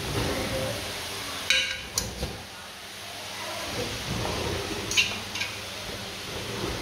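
Metal spoon stirring a pot of rice and peas in a large aluminium cooking pot, scraping through the rice, with a few sharp metallic clinks against the pot, two of them about a second and a half to two seconds in and two around five seconds in.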